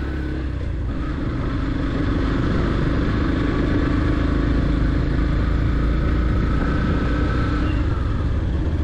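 Yamaha FZ-X motorcycle's single-cylinder engine running steadily while riding, heard from the rider's seat; it gets a little louder about two seconds in.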